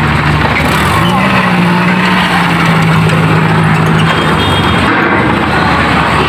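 Small pickup truck's engine running under load as it drives up a steel ferry loading ramp, its pitch stepping up about a second in and fading after about four seconds, over a loud steady rushing noise.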